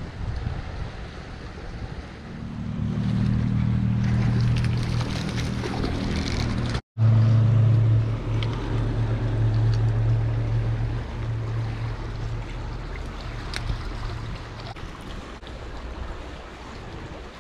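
Creek water rushing over riffles, with wind on the microphone. A low steady hum runs from about two seconds in to about eleven seconds, and the sound cuts out for an instant about seven seconds in.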